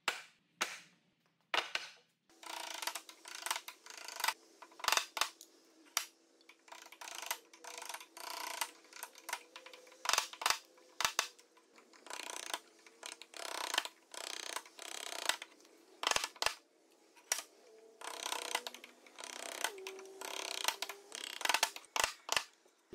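Bench chisel paring a hardwood tenon by hand: a run of short scraping shaving strokes, about one or two a second, with a few sharp knocks in between.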